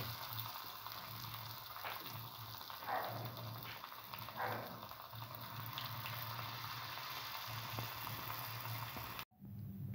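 Potato, corn flour and mint patties deep-frying in hot oil: a steady sizzle and bubbling, with a few brief louder crackles. The sound cuts off abruptly near the end.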